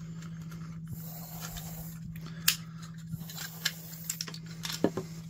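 Plastic case of a cordless-tool battery adapter being pried open by hand: several sharp plastic clicks and snaps, the loudest about halfway through, over a steady low hum.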